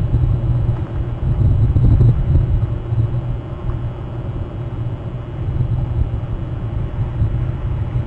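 Rushing river water over rocky rapids, heard as a steady low rumble through a live-cam microphone.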